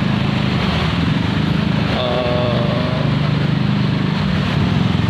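A motor vehicle engine running steadily with a low drone, with a brief higher-pitched tone about two seconds in.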